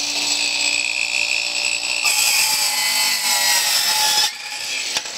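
Battery-powered Craftsman sliding compound miter saw running up with a steady whine, then cutting down through colonial baseboard trim for a 45-degree bevel cut. The cut starts about two seconds in, much louder, with the motor's pitch sagging slightly under load. It ends a little after four seconds, and the saw runs on more quietly.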